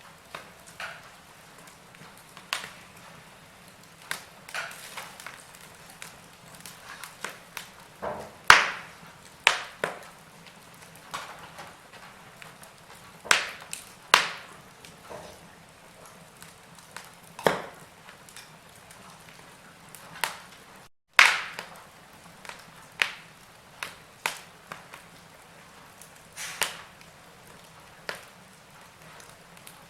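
Wood fire crackling: irregular sharp pops and snaps of varying loudness over a faint hiss. A split-second dropout comes about two thirds of the way through.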